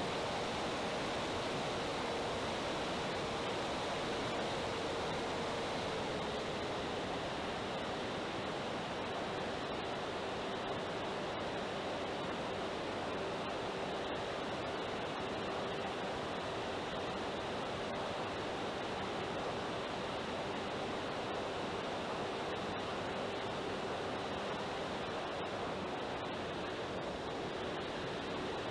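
Steady wind rush over a camera mounted on a FlightLine Spitfire 1600 RC warbird in flight, with the faint even hum of its electric motor and propeller beneath it. The hum drops slightly in pitch about six seconds in, then holds.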